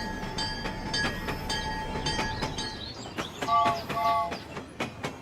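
Train-like running sound with a series of sharp clicks, and two short horn toots, each a chord of several tones, about three and a half seconds in.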